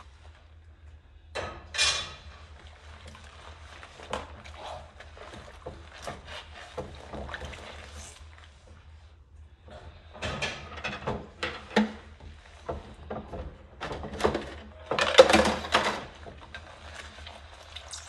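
Rubber-gloved hands washing dishes in a sudsy stainless steel sink: water sloshing, a sponge scrubbing and dishes knocking, in uneven bursts with the loudest about two seconds in and again around the fifteen-second mark.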